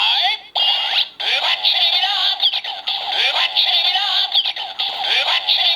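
DX Ghost Driver toy belt playing its looping standby music through its small built-in speaker: a band-sung chant over a repeating groove, the belt's standby sound after its lever is pulled open. A brief break about half a second in, then the loop runs on.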